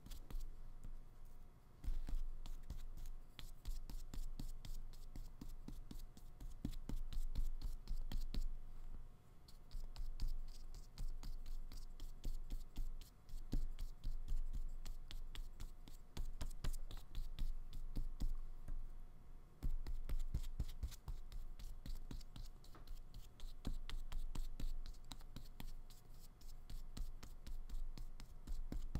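Small flat paintbrush scratching acrylic paint onto a painting in a rapid series of short strokes.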